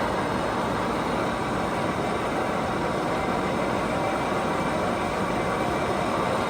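Lansing 20-by-120-inch engine lathe running, a steady mechanical whir with a few faint constant tones.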